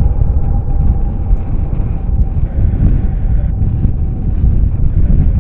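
Heavy wind rumble on the microphone over a jet airliner's engine noise, with a steady high whine that fades away about halfway through.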